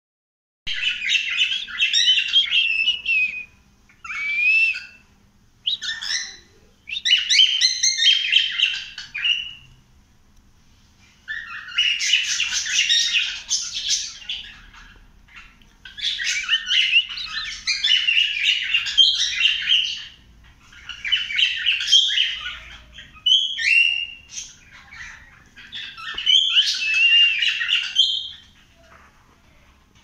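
Cockatiel chirping in repeated bouts of rapid, high chatter, each one to three seconds long, with short pauses between.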